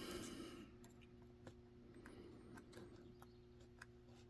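Faint, scattered metallic ticks of lock picks working in the keyway of a Zeiss Ikon lock, about ten in all, over a low steady hum.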